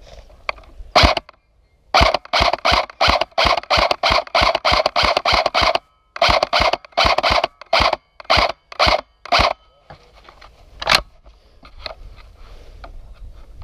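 Airsoft gun firing in two quick strings of sharp snapping shots, about three a second, with single sharp cracks just before and after them.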